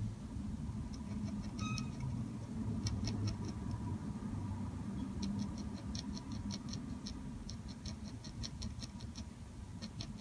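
Dip pen nib scratching on paper in short quick strokes: faint clusters of small ticks, thickest from about halfway through, at around five or six a second. A low steady room hum runs underneath.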